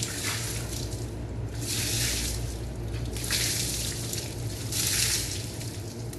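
Water spraying in four short bursts, about one every second and a half, rinsing a bicycle, over a steady low hum.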